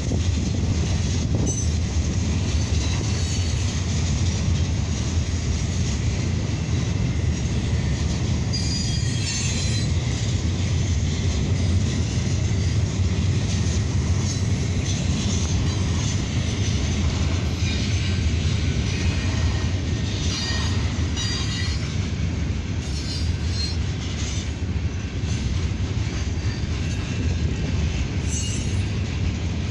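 Freight cars rolling steadily past on the rails, a continuous low rumble of wheels and trucks, with short high-pitched wheel squeals a few times along the way.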